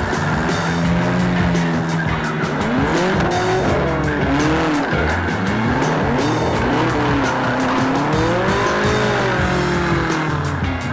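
Race car engines revving, with pitch rising and falling, and tires squealing, over background music with a steady beat.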